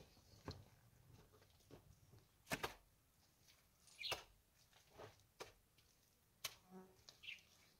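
Faint, scattered pats, slaps and knocks of wet mud being scooped by hand and pressed onto a stone wall, each one short and sharp, with a few short high chirps between them.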